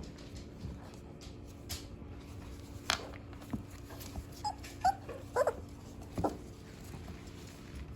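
Two-and-a-half-week-old Shepsky puppies whimpering: a few short, high squeaks and whines in the middle, with a single sharp tick a little before them.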